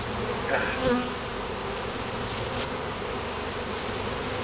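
Honeybees buzzing steadily over an open top bar hive, a comb heavy with bees lifted out. A brief sharper sound rises above the buzz about a second in.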